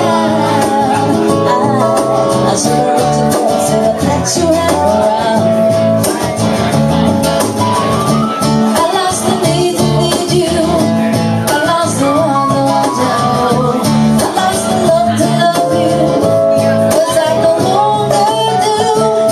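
A woman singing a song to strummed acoustic guitars.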